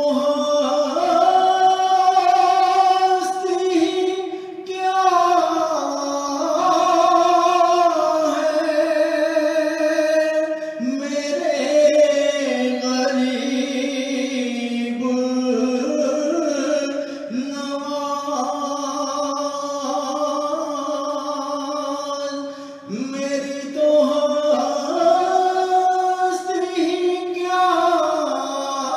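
A man singing a naat, a devotional song in praise of the Prophet Muhammad, in long held and ornamented phrases, breaking briefly for breath between lines.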